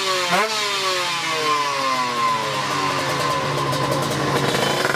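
Drag-race motorcycle engine blipped once sharply on the throttle just after the start, then an engine note falling steadily in pitch for about four seconds.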